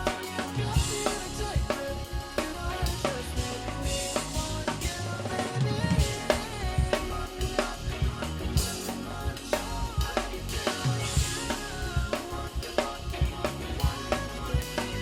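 Pop song instrumental with a steady drum-kit beat of bass drum and snare under pitched keyboard and bass lines, no vocals.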